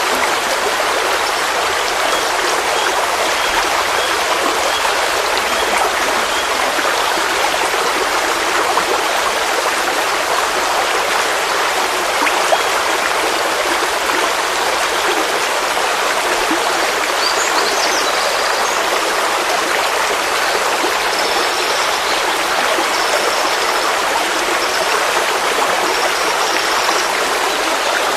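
Forest stream flowing steadily: an even, unbroken rush and burble of running water. A few faint short high tones come in over it in the second half.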